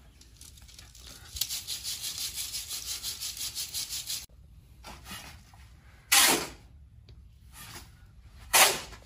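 Red moulding sand being riddled through a round wire-mesh sieve into a steel casting flask over the basin pattern: a fast rhythmic rattling shake, about nine shakes a second, for a few seconds. Near the end come two short, loud scraping rushes of sand about two and a half seconds apart.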